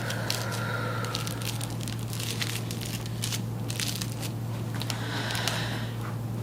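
Irregular crinkling, crackling clicks from handling and movement, over a steady low hum.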